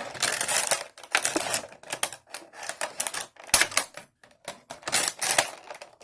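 Stiff plastic toy packaging being handled and worked loose, giving an irregular run of crackles, clicks and rustles.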